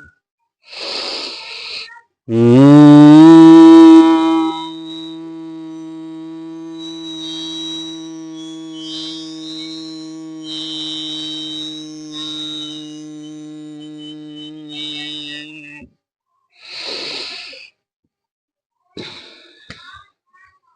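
Bhramari pranayama (humming bee breath): a deep inhale, then one long steady nasal hum on a low pitch, held for about thirteen seconds. It slides up slightly and is loudest in its first two seconds. Another inhale follows.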